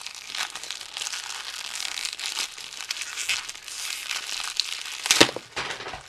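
Packaging crinkling and rustling as a twisty puzzle is unwrapped, a dense run of crackles with a louder sharp crackle about five seconds in.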